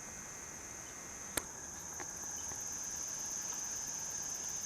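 Steady high-pitched chorus of crickets and other insects, with a single sharp click about a second and a half in.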